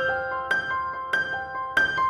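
Background music: a light melody of quick, separate struck notes, each ringing briefly before the next.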